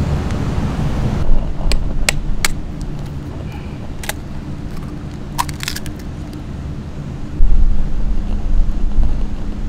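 Dry instant ramen block crackling and snapping in short clicks as it is pressed down into a pot of simmering soup, over a steady low rumble that grows louder about seven seconds in.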